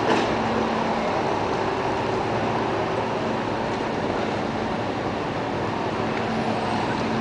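Steady background din of a busy railway station: a constant rumbling hiss with a faint low hum, and one short click at the start.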